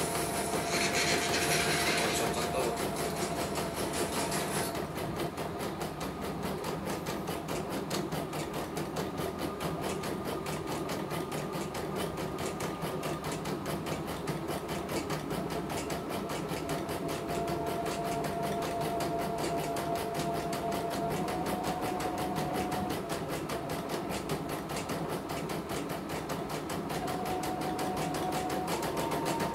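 CNY computerized embroidery machine stitching a design: a rapid, steady needle clatter with a faint motor whine that steps up and down in pitch a few times. A hiss lies over it for the first few seconds.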